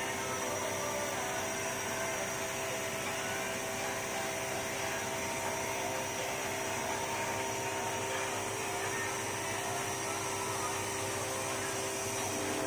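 Laser cutting machine running, a steady fan-like drone with several held tones over a hiss.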